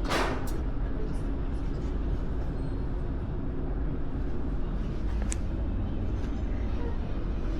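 Outdoor city ambience: a steady low traffic rumble, with a brief noisy burst right at the start and a short sharp click about five seconds in.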